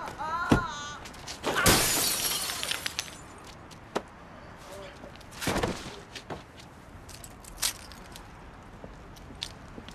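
A man's yell and a sharp hit, then car window glass smashing for about a second, starting near two seconds in. Later come a dull thump and a few single clicks.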